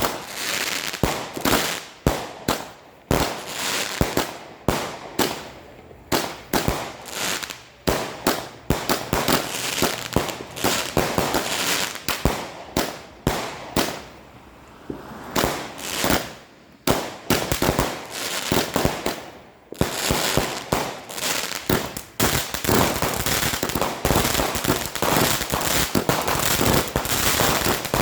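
Weco Dreamcatcher firework compound battery firing a rapid series of sharp shots and bursts, with short pauses between volleys. Over the last third the shots come almost without pause.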